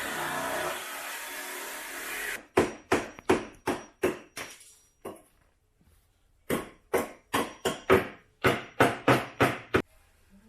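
A power saw with a diamond blade runs steadily while cutting brick, then stops about two seconds in. Quick hammer blows follow in two runs, about three a second, with a short pause between the runs.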